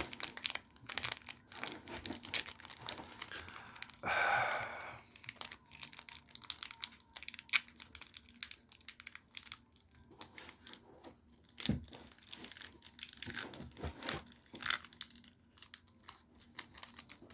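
Magic: The Gathering cards being handled from an opened booster pack: stiff paper cards flicked and slid against each other with many short clicks, and the foil pack wrapper crinkling. A longer, louder rustle comes about four seconds in, and a single thump near the twelve-second mark.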